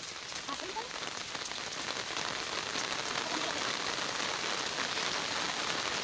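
Steady rain falling on leaves and wet ground: a dense patter of drops that grows slightly louder.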